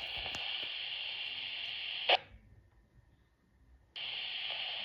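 Two-way radio static hiss on the fire dispatch channel, ended by a short burst of noise, a squelch tail, about two seconds in. After a near-silent gap the hiss comes back as the channel keys up again near the end.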